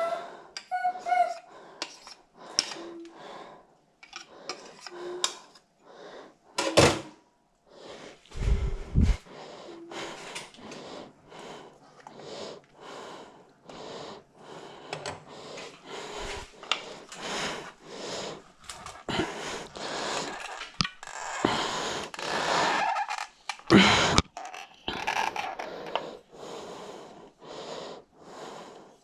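Hand-held plastic potato ricer squeezing boiled potatoes into a bowl, a run of short squishing presses about two a second, with heavy breathing from the effort. Two sharp clicks and a few low thuds stand out.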